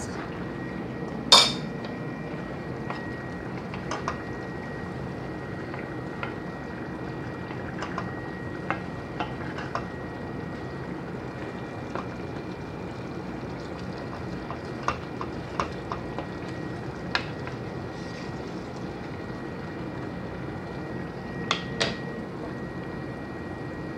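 Pot of bulgur in tomato and mince sauce simmering on a gas burner, a steady bubbling hiss, with scattered sharp clinks of utensils and kitchenware against the pot and stovetop, the loudest about a second in and two more near the end.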